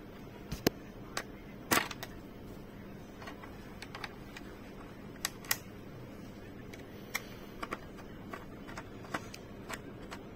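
Irregular light clicks and taps of hard plastic and a small screwdriver as a helmet visor's pivot kit is fitted and screwed back onto the shell, with a slightly louder scrape about two seconds in.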